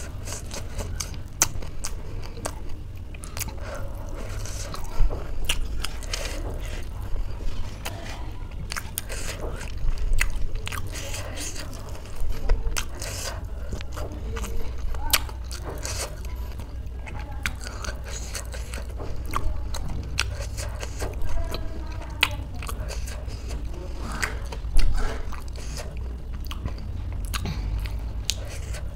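Close-miked chewing and crunching of spicy snack food: irregular crisp crunches and wet mouth clicks, a few louder bites standing out, over a steady low hum.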